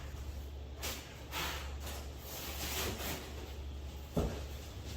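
Faint handling and scuffing noises over a steady low hum, with one sharp knock about four seconds in.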